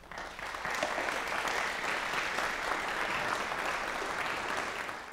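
Audience applauding: dense clapping that starts abruptly and holds steady.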